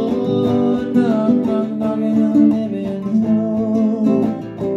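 Nylon-string acoustic guitar strummed in a steady rhythm, ringing chords with regular strokes.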